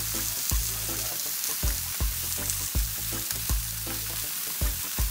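Chicken pieces sizzling on a hot grill grate, a steady hiss of fat and juices cooking. Background music with a steady beat and bass plays over it.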